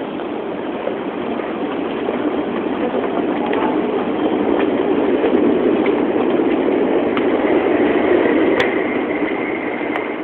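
A train running past, its rumble swelling to a peak about six to eight seconds in and then easing. A steady high squeal sets in for the last few seconds, with a few sharp clicks.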